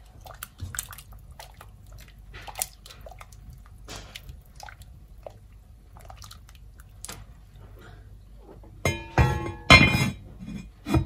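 Metal spoon stirring soup in a Le Creuset enamelled cast-iron pot, with light clinks and scrapes against the pot. Near the end the heavy lid is set on with a few loud clanks that ring briefly.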